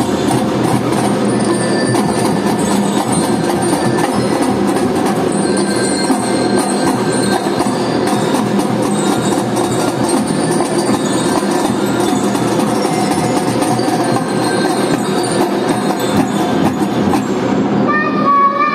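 Children's marching drum band playing a tune on snare drums, bass drums and cymbals with a bell-like melody over them. The music changes about a second before the end.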